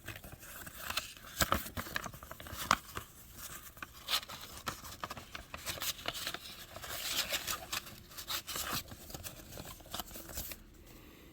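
Old paper photographs, cards and letters being handled and shuffled: irregular rustling, light taps and brushing of paper, dying down near the end.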